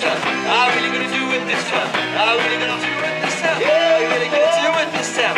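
Live rock band playing a song, with chords, a bass line and drum hits under a bending melodic lead line.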